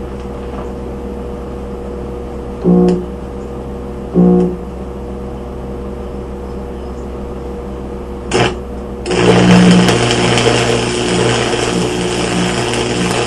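Hobart Stickmate stick welder humming with its arc off. Brief arc strikes come about three, four and eight seconds in, then about nine seconds in the arc holds and a 6011 rod burns with a loud, steady crackle.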